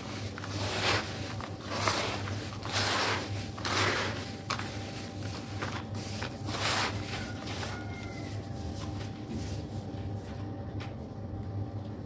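Gloved hands squeezing and crumbling dry, powdery red sand in a plastic tub: a soft, gritty crumbling hiss in separate handfuls about once a second, then quieter after about seven seconds, over a steady low hum.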